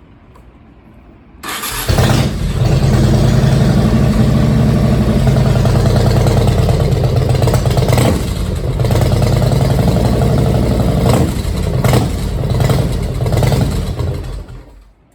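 A 2000 Yamaha Road Star 1600's air-cooled V-twin is started about a second and a half in and runs, swelling a few times, then stops near the end. It is run briefly to draw the fresh oil into the engine and transmission before the last of the oil is topped off.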